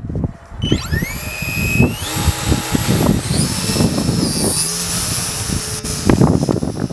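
Electric motor and propeller of a Valenta Ray X RC glider spinning up at launch. A whine rises sharply under a second in, climbs twice more in steps, then holds at a high pitch, with wind buffeting the microphone.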